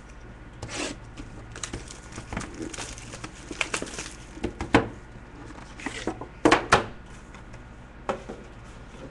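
Sealed trading-card boxes being opened: plastic wrap crinkling and tearing, with irregular rustles and light clicks of cardboard and cards being handled.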